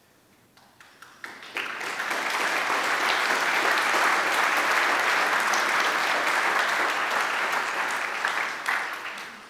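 Audience applauding: the clapping builds about a second in, holds steady and fades near the end.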